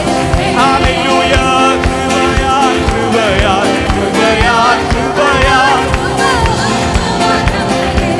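Live worship band music: a steady drum beat under a wavering sung melody.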